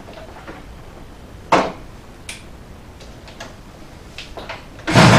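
A few light clicks and one sharper knock. Then, near the end, the Kawasaki S2's 350 cc three-cylinder two-stroke engine suddenly starts up loud.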